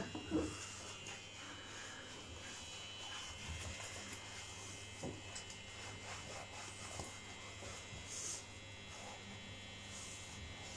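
Faint, steady electrical buzz with a low hum, and a few soft knocks from handling in the bathtub.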